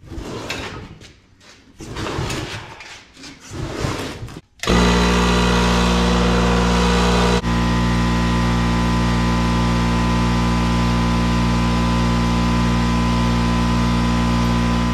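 Scraping and knocking as a dirty ATV is dragged and rolled across a concrete shop floor. About four and a half seconds in, an electric air compressor starts suddenly and runs with a steady, loud hum while the ATV's tires are aired up through a hose.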